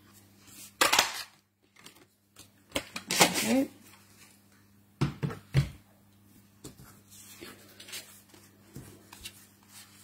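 Stampin' Up! jar paper punch pressed through white card stock with a sharp clunk about a second in, followed by rustling card as the cut-out is pulled free, two low thumps, then light paper handling.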